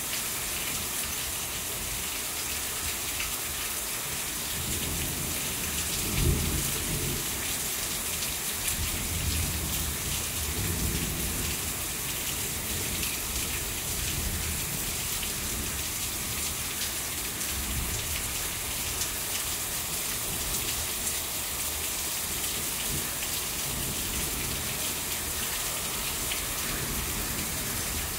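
Heavy rain falling steadily in a thunderstorm, with low rolls of thunder, the strongest about six seconds in and another around ten seconds.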